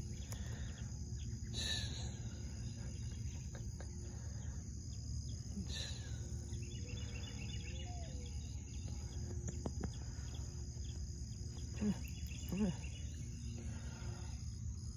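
Outdoor ambience: a steady, even high-pitched insect buzz over a low rumble, with a few faint short knocks and two brief low vocal sounds about twelve seconds in.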